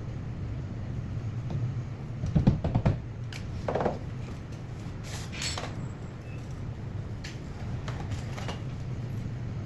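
Scattered short clicks and knocks over a steady low hum, the loudest cluster about two and a half seconds in.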